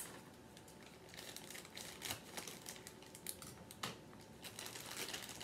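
Plastic bag of mini marshmallows crinkling as it is handled and opened by hand: a faint scatter of crackles and small clicks.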